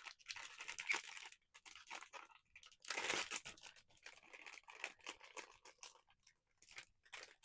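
Hands opening a cardboard blind box and handling the packaging inside, with irregular crackling, rustling and crinkling, and a louder rustle about three seconds in.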